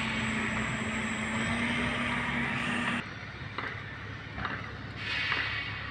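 A machine running with a steady hum and hiss that cuts off abruptly about three seconds in, followed by a few faint clicks.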